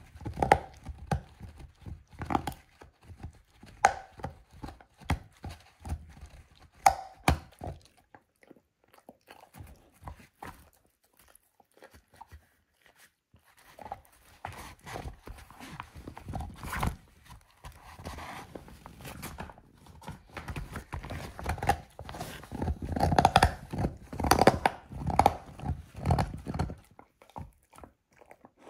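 A dog gnawing and crunching a lamb bone: separate sharp cracks about once a second at first, a few quieter seconds, then denser, louder chewing and crunching through the second half.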